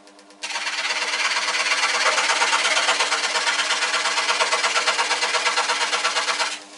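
Switzer 16-inch 125 W scroll saw at its slow setting, its reciprocating blade cutting into a thick piece of wood. A rapid, rhythmic rasping starts about half a second in and stops near the end, over the saw motor's steady hum.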